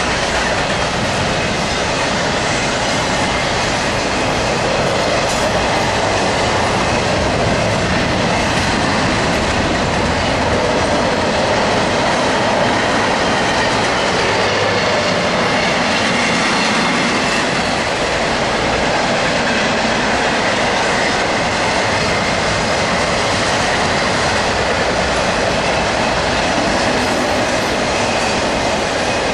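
Double-stack intermodal freight train's well cars passing at speed: a loud, steady rolling noise of steel wheels on rail that keeps up without a break.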